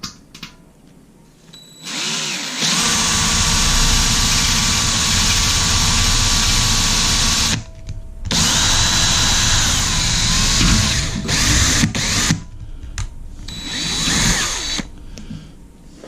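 Electric drill with a small bit boring into the enamel-coated steel lid of a Weber 22-inch kettle grill, running in several bursts: one long run of about five seconds starting a couple of seconds in, a brief stop, then shorter runs as the hole is worked.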